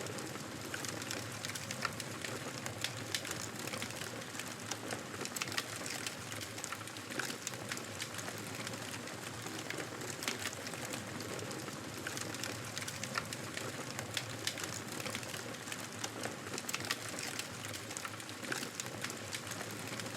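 Campfire burning: a steady hiss with frequent sharp crackles and pops from the burning wood.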